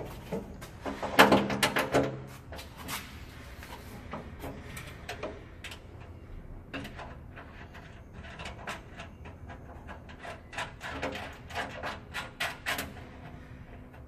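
Metal clicking and clinking of a bolt and nut being handled and threaded by hand inside a van door's sheet-metal inner panel. The loudest flurry of clicks comes about a second in, with shorter clusters of quick clicks later on.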